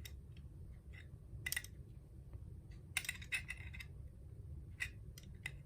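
Faint small clicks and scrapes of hands packing cotton wadding into a Zippo lighter's metal insert, a few scattered ticks with a quick cluster about three seconds in.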